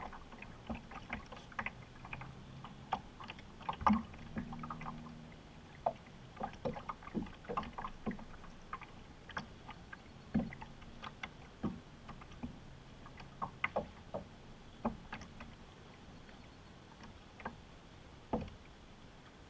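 Water lapping and light irregular knocks against the hull of a small fishing boat drifting on a river, a few taps a second. A faint low hum comes and goes in the background.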